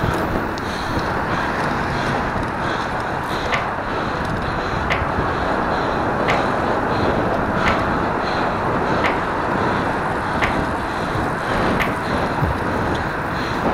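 Steady wind and road noise from riding a road bike, with a faint sharp tick about every second and a half.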